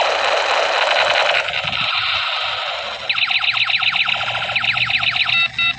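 Electronic toy gun sound effects: a burst of hiss, then rapid repeated falling 'pew' zaps from about three seconds in, and a run of electronic beeps near the end.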